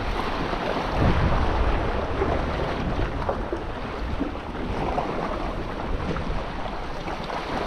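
Sea waves washing over shoreline rocks, mixed with wind buffeting the microphone.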